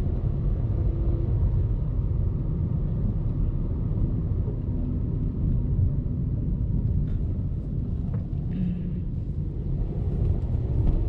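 Steady low rumble of a car driving along the road, heard from inside the cabin: engine and tyre noise.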